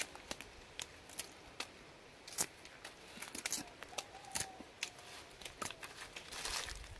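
Sugarcane rind being stripped off the stalk by hand: a series of sharp snaps and tearing cracks, the loudest about two and a half seconds in.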